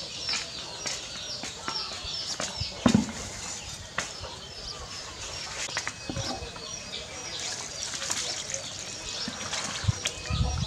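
Small birds chirping rapidly, short high calls repeating several times a second, with scattered clicks and knocks and a louder thump about three seconds in.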